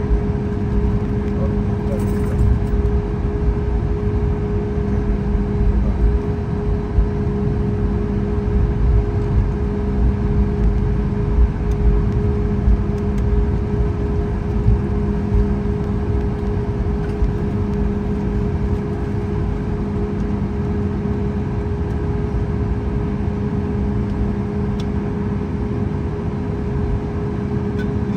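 Cabin noise of a Boeing 737 MAX 8 taxiing, its CFM LEAP-1B engines at idle: a steady hum with a fixed pitch over a low, uneven rumble.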